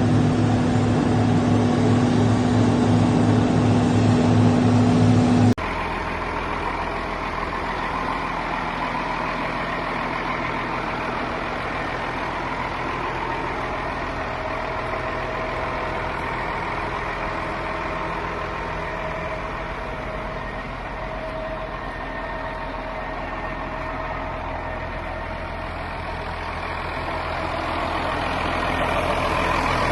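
Heavy farm machinery running steadily during a corn silage harvest: diesel engines of tractors and a forage harvester. A cut about five seconds in switches from a loud, deep engine drone to a quieter, higher steady hum.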